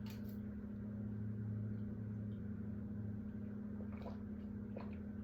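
A steady low electrical hum, with a few faint soft clicks about four and five seconds in.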